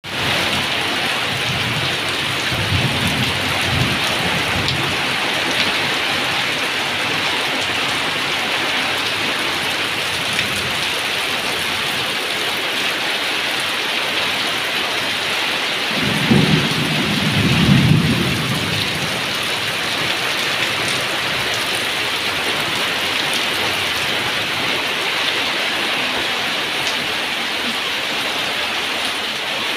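Heavy rain pouring steadily onto corrugated tin roofs and a yard, with low rumbles of thunder a few seconds in and a louder one about halfway through.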